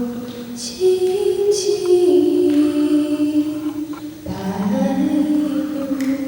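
Slow music of long held notes that step from one pitch to the next, with a short hiss twice in the first two seconds; it cuts off abruptly at the end.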